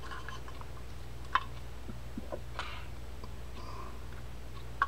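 Light clicks and taps of a Penn Senator reel's metal side plate and frame being turned and fitted together by hand to line up the holes, with a sharper click about a second and a half in and another at the very end.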